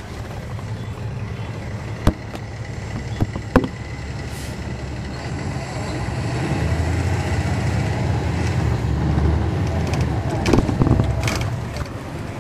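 Inside a 2009 NABI 40-SFW transit bus: its Caterpillar C13 ACERT diesel engine running with a low rumble that grows louder from about halfway through and eases off near the end. A sharp knock about two seconds in and another a second and a half later, with some clatter shortly before the end.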